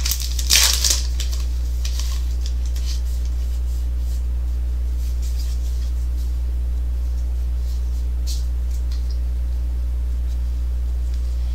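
A steady low hum throughout, with a brief rustle about half a second in and fainter short rustles around two and eight seconds.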